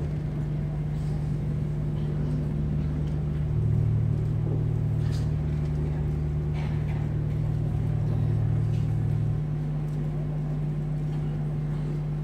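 Steady low electrical hum from the church sound system. A deeper layer of hum joins about three and a half seconds in and drops out a couple of seconds before the end. A few faint knocks sound over it.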